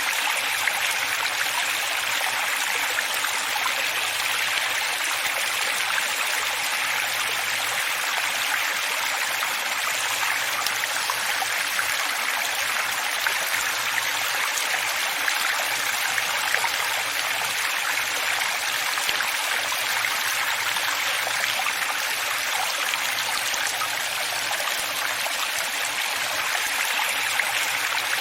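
Running water flowing steadily: an even, hissy rush with many small splashes and trickles, light rather than deep, with no change in level.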